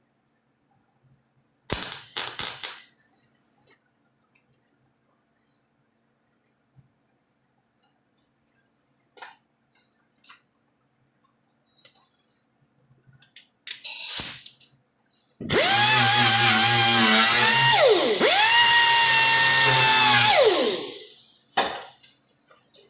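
A handheld power tool runs at a steady high pitch for about five seconds near the end, dipping in pitch once as it is loaded and winding down as it stops. Shorter crackling bursts come about two seconds in and again near fourteen seconds.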